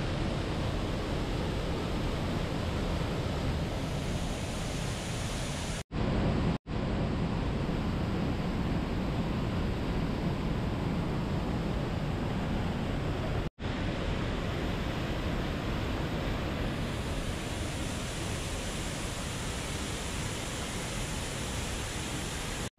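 Waterfall and rushing stream water: a steady, loud rush of falling water. It cuts out briefly three times, about six, six and a half and thirteen and a half seconds in.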